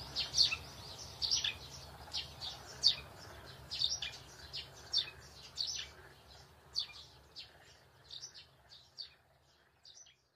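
Small birds chirping in short, high, repeated calls, about one or two a second, growing fainter toward the end, over a low steady hum.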